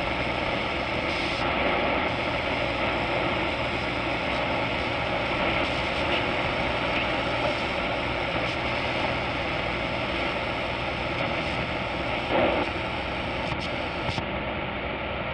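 Shortwave static and hiss from a Tecsun H-501X receiver's speaker as it is tuned up across an almost empty 19-meter band toward 16,000 kHz. A brief blip comes about twelve seconds in.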